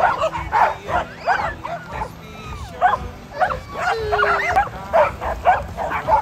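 Several dogs barking and yelping excitedly over one another, several quick barks a second, mixed with higher, wavering yelps.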